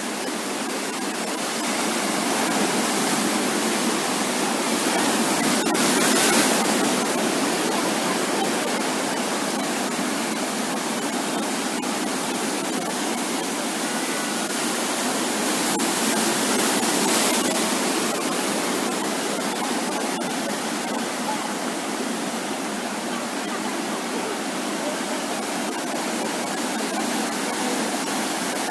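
Sea surf on a beach: a continuous wash of waves breaking and rolling in, swelling louder about six seconds in and again around seventeen seconds.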